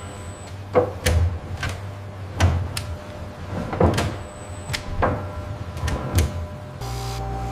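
A series of about ten irregular knocks and clunks over a low steady hum, like heavy wooden parts being handled by factory machinery; music comes in near the end.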